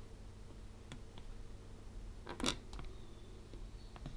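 A few small plastic clicks from keys being pressed on a Seiko ER2000 electronic thesaurus, with the loudest click about halfway through.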